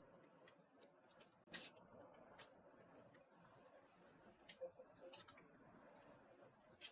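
Near silence with a few faint, sharp clicks: the loudest about a second and a half in, a close pair a little past the middle, and one more near the end.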